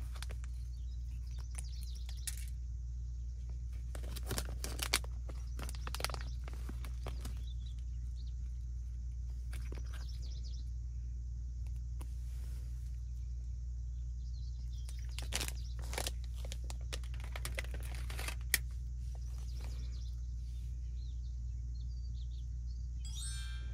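Plastic food packaging crinkling and rustling in scattered bursts as dried seasoning is pinched out of a resealable pouch and sprinkled onto rice balls, over a steady low hum.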